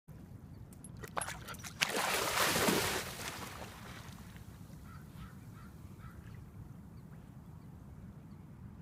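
A dog splashing as it bounds from the shallows into creek water: a loud burst of splashing about two seconds in, then fainter water sounds as it swims off.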